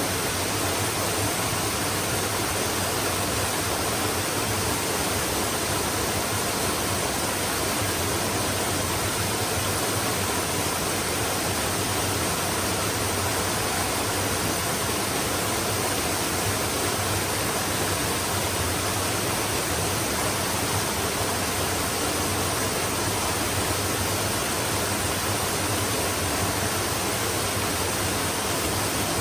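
Stream flowing: a steady, unbroken rush of water that stays even throughout.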